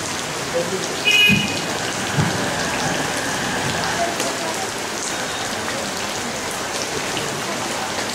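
A steady, even hiss, like rain falling, with brief voices about a second in.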